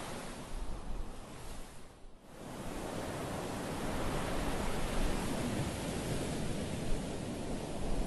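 Small ocean waves breaking and washing up a dark coarse-sand beach: a steady rush of surf that thins briefly about two seconds in, then swells again as the next wave breaks and runs up the shore.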